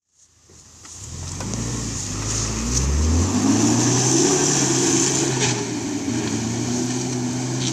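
UAZ Patriot SUV's engine revving as it drives through deep mud, fading in over the first second, climbing in pitch for about three seconds, then holding steady and loud, with a few sharp knocks.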